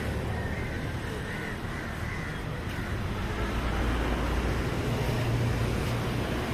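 A steady low rumble of city traffic, with a few crow caws in the first couple of seconds.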